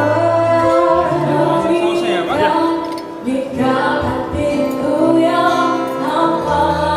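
Background music with singing over long held bass notes.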